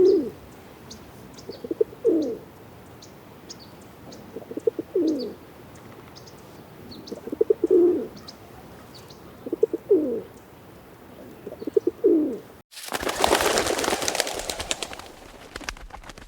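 A pigeon cooing six times, about every two seconds, each coo a few quick pulses ending in a falling note, with faint high chirps of small birds behind. Near the end the cooing stops and a pigeon's wings clap and flap in flight for about three seconds, fading away.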